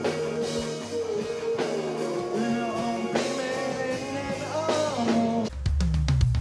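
Rock band music with a man singing over guitar. About five and a half seconds in it changes to a loud drum beat with deep bass.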